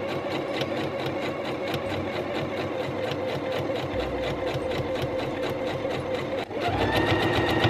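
Pfaff Quilt Ambition 2.0 electronic sewing machine stitching a zip in with the zipper foot, a fast, even run of stitches. Near the end it dips for a moment, then picks up speed, running louder and higher.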